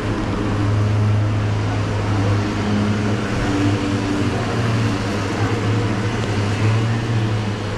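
Steady low engine hum of motor traffic on a wet street, over the hiss of rain and tyres on the wet road.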